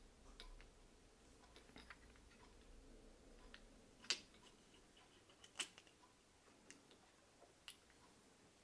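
Near silence broken by a few faint, sharp clicks and taps of small metal engine parts being handled by hand, the clearest about four seconds in and again a second and a half later.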